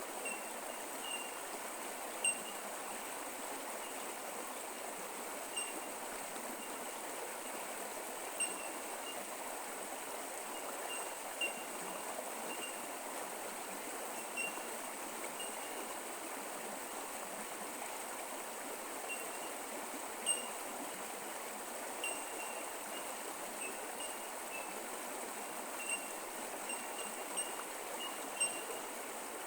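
Bush creek flowing steadily over its bed, an even rushing trickle. Over it come short, faint, high-pitched pips every second or two.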